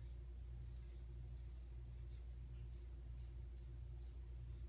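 Parker Variant adjustable safety razor with a Big Ben blade scraping through a day's stubble in short, quick strokes, about two or three a second. The blade cuts cleanly without hanging up. A low steady hum runs underneath.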